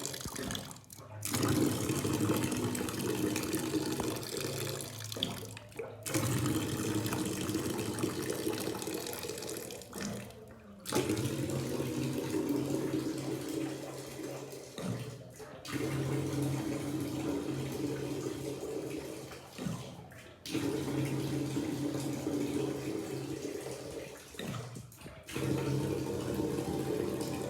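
Water rushing and splashing from a water heater being drained to flush out sediment, dropping away briefly about every four to five seconds.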